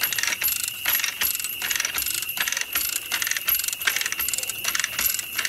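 Hand-operated chain hoist on a tripod frame clicking in quick, irregular runs as it lowers a giant pumpkin onto a pickup bed, with a steady high tone behind it.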